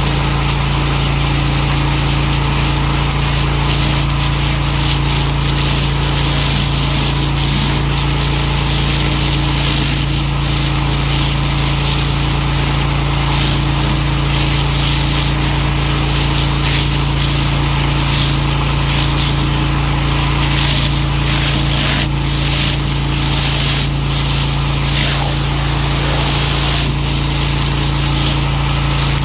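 Pressure washer running steadily: a constant low motor hum under the hiss of the high-pressure water jet, which rises and falls as the spray moves.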